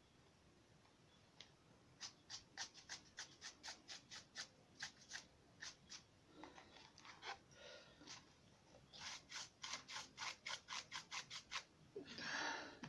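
Paintbrush dry-brushing a paper model boat: quick short scratchy strokes of the bristles over the surface, in two runs, the second faster, with a brief louder rustle near the end.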